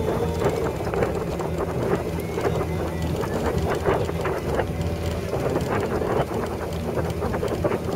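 A motor running steadily, with frequent short knocks and rattles over its low hum.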